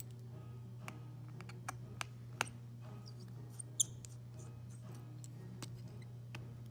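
Sparse small clicks and ticks of a precision tri-wing screwdriver and tiny screws being handled during a phone teardown, the sharpest nearly four seconds in, over a steady low hum.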